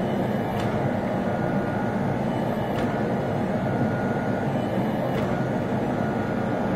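Converted 8-ton log splitter forging press running steadily, its motor and hydraulic pump making an even hum with a faint high whine as the dies squeeze a hot steel bar. A few faint clicks come through, about two seconds apart.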